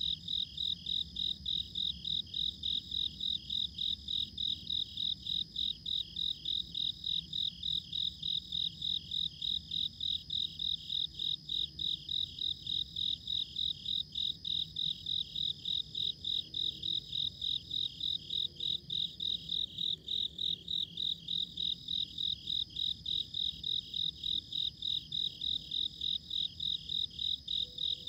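Crickets chirping in a steady, even rhythm of about three chirps a second, over a continuous high-pitched insect trill.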